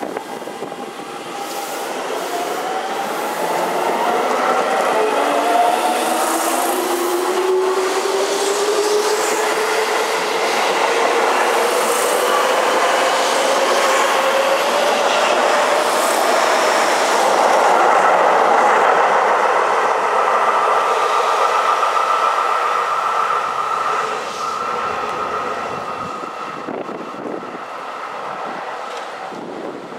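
Seibu 6000 series electric train pulling away: its motors give a whine of several tones rising steadily in pitch as it accelerates, with wheels clattering over rail joints as the cars pass. The sound peaks a little past halfway and fades over the last several seconds as the train leaves.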